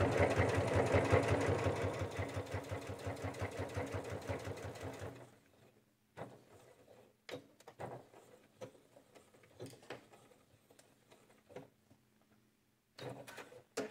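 Janome sewing machine running at a fast, steady stitch through thick layers of flannel and PUL, then stopping abruptly about five seconds in. After that come only faint, scattered clicks and taps from handling the fabric and machine.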